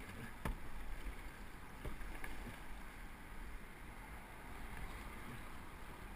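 Canoe paddles dipping and pulling through river water, with water washing along the open canoe's hull. A few light knocks come in the first couple of seconds.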